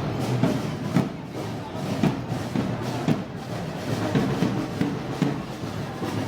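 Moros y Cristianos festival band music played live, with heavy drum strokes keeping a steady beat about once a second.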